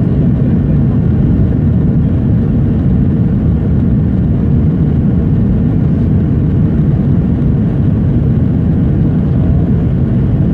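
Steady, loud cabin noise of a jet airliner climbing after takeoff: a deep, even rumble of engines and rushing air heard from inside the cabin.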